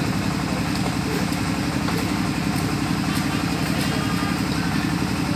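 A small engine running steadily at idle, a constant low drone, with a few faint sharp clicks over it.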